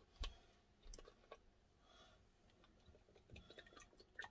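Near silence with a few faint, scattered clicks and light taps, growing more frequent near the end.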